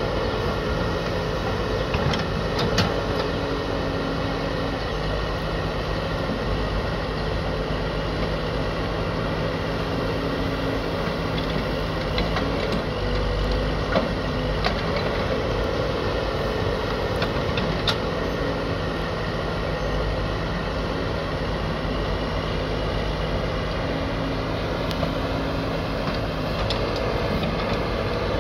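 Escorts Digmax backhoe loader's diesel engine running steadily while the backhoe digs and loads soil, its note shifting slightly now and then, with a few short sharp knocks.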